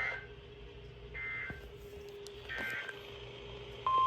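Three short bursts of NOAA Weather Radio SAME digital data tones, each a brief warbling two-tone chirp, about a second and a half apart: the end-of-message code that closes a warning broadcast. Just before the end a loud steady 1050 Hz warning alarm tone switches on, the tone that announces the next warning.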